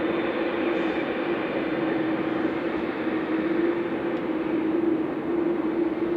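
Jet airliner's engines at takeoff power: a steady, even rush of noise with a strong steady hum through it.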